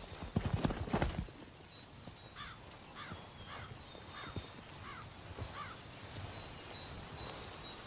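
Horse hooves clopping and thudding on the ground for about the first second, then a crow cawing six times at an even pace, about two caws every second or so, over quiet outdoor ambience.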